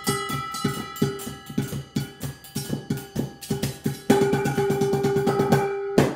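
Improvised kitchen percussion: spatulas and hands striking upturned metal mixing bowls, jars and plastic tubs in a steady beat, the bowls ringing after each hit. About four seconds in it breaks into a fast flurry of strikes for two seconds, then stops abruptly.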